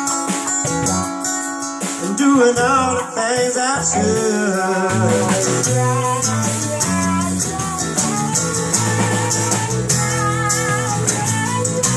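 Live band playing: strummed acoustic guitar, electric guitars and a drum kit with cymbals keeping a steady beat. A wavering lead melody comes in about two seconds in.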